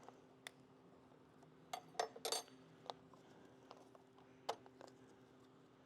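Faint scattered clicks and light metallic clinks of motorcycle parts and hardware being handled and set aside, with a cluster of several quick clinks about two seconds in and a single sharper one about four and a half seconds in, over a faint steady hum.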